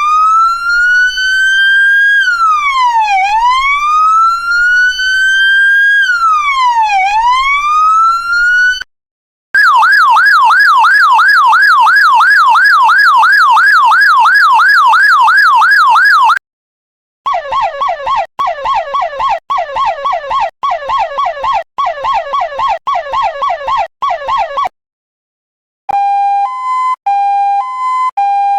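Electronic police siren playing a run of patterns with brief gaps between them: first a slow wail rising and dropping about every four seconds, then a fast yelp of about three sweeps a second, then a rapid warble broken into roughly one-second bursts, and near the end a two-tone hi-lo alternating between two pitches.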